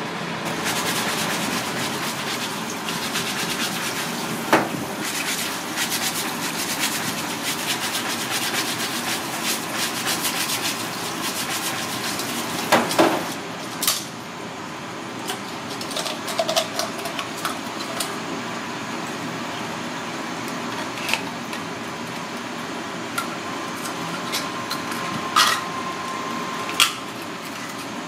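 Scattered sharp clicks and knocks as red clam (akagai) shells and a shucking knife are handled and pried open over a stainless steel sink, the loudest a little before halfway. A steady hiss of background noise runs underneath.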